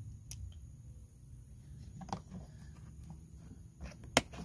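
Handling of a clear plastic grommet organizer case: faint clicks and rustles, then one sharp click about four seconds in as the lid is pressed shut, over a low steady background hum.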